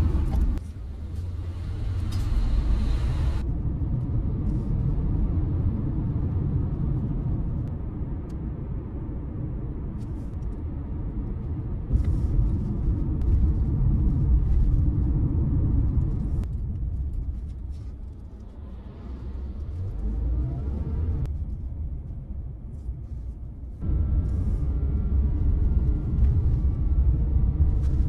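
Car on the move: a steady low rumble of road and engine noise. It is cut into several sections, with sudden jumps in level.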